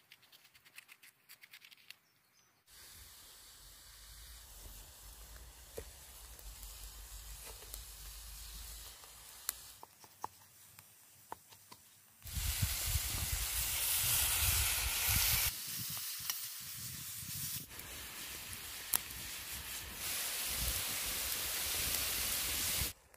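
Diced meat sizzling in a hot pan over a wood fire: a loud, steady hiss that fills the second half and cuts off abruptly near the end. Earlier, light knife clicks as bell peppers are cut on a wooden board.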